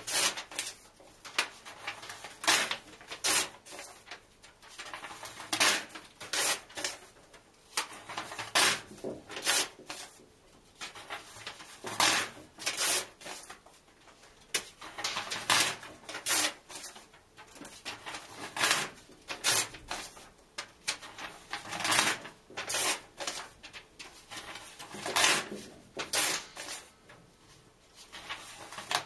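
Book pages being ripped out and torn in half, one after another: short, sharp paper-tearing rips in groups of two or three about every three seconds.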